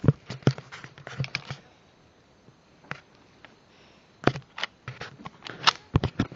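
Sharp metallic clicks and clacks of a pump-action shotgun being handled and worked, in short clusters, while a shell that failed to chamber is dealt with.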